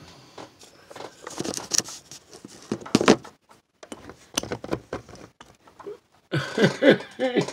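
Phone handled close to its microphone: rustling with scattered clicks and knocks as hands move over and around it, then a short vocal sound near the end.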